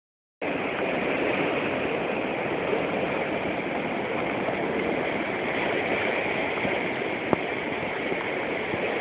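Floodwater of a swollen creek rushing and churning through rapids in a steady roar of water. A single sharp click comes about seven seconds in.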